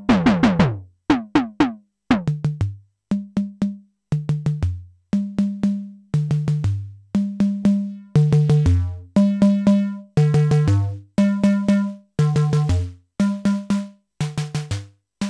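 Noise Engineering Tymp Legio Eurorack drum module playing a sequenced pattern of short, pitched electronic drum hits, several a second, at stepping pitches. The first hits sweep down in pitch, and from about halfway in the hits turn brighter, with more ringing overtones, as its knobs are turned.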